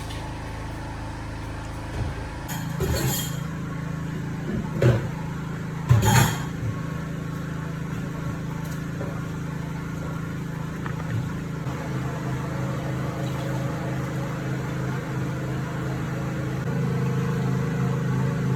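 A steady low mechanical hum, with a few sharp knocks and clatters between about two and six seconds in.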